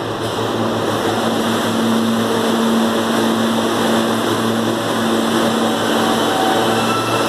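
R160 New York subway train at the platform, its onboard equipment giving a steady hum over a loud rushing noise. Near the end a faint motor whine climbs in pitch as the train starts to pull away.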